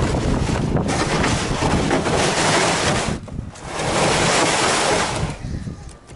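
Plastic hull of a Tucktec folding kayak scraping and rushing over beach sand as it is dragged toward the water, a loud rasping noise that stops briefly about three seconds in and fades near the end.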